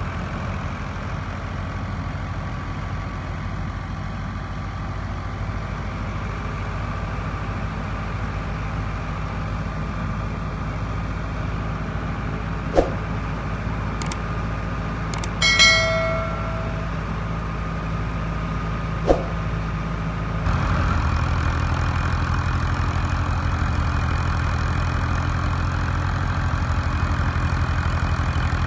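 NH Ghazi tractor's diesel engine running steadily under load while it drives a wheat thresher, with the thresher's drum and fan running alongside. A few sharp clicks and a short chime sound near the middle, and about two-thirds through the sound jumps louder and closer.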